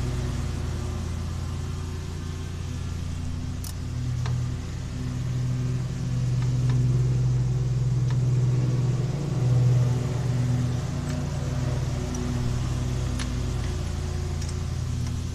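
An engine running steadily, its low drone swelling and easing every few seconds. A few light clicks and taps sit over it.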